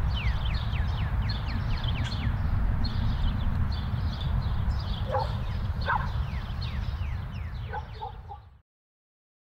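Birds chirping in quick, repeated descending notes over a steady low rumble, with a few short lower calls in the middle; it all fades out shortly before the end.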